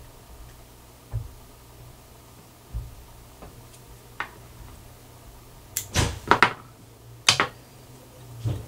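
Handling noises at a fly-tying vise: a few soft knocks, then a quick cluster of sharp clicks and taps about six seconds in and another just after seven, over a faint low hum.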